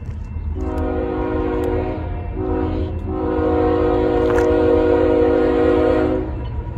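Diesel freight locomotive's multi-chime air horn sounding the end of the grade-crossing signal: a long blast, a short blast, then a final long blast of about three seconds. Under it runs the low rumble of the approaching train.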